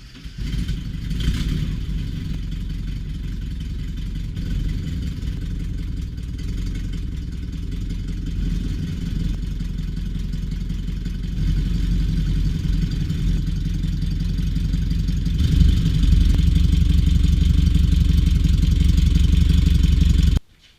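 An engine starts and runs with a steady, rapid low pulsing. It gets louder about three-quarters of the way through, as if revved higher, and then cuts off suddenly.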